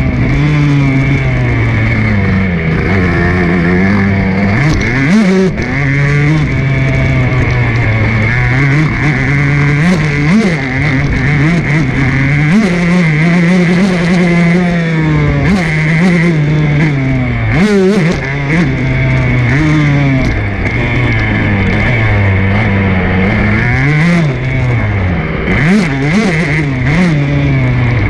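Motocross bike engine heard from onboard, its revs rising and falling again and again as the rider accelerates and shuts off through the track's hills and turns.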